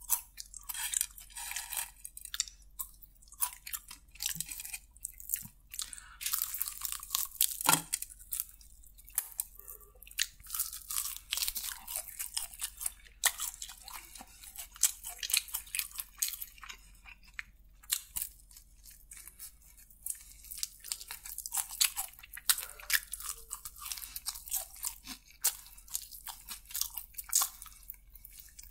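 Close-miked crunching and chewing of KFC crispy fried chicken: many irregular crisp crackles from the fried coating, with softer chewing between them.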